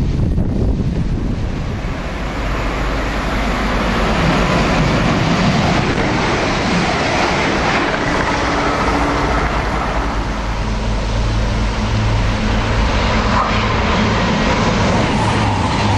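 Express passenger trains running through a station at speed: a steady rush of wheel and air noise throughout, with a low hum building near the end as the next train approaches.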